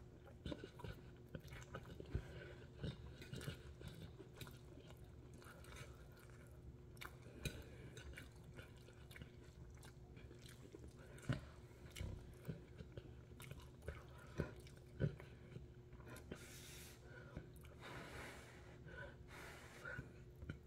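A person chewing a mouthful of noodles, faint, with many short sharp clicks and smacks scattered through the chewing.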